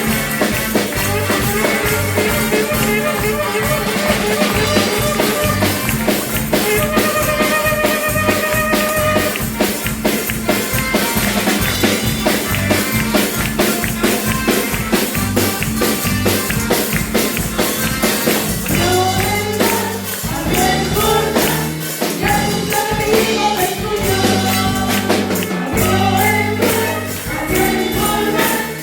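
Upbeat music with a fast, steady percussion beat, tambourine-like, that runs throughout; singing voices come in about two-thirds of the way through.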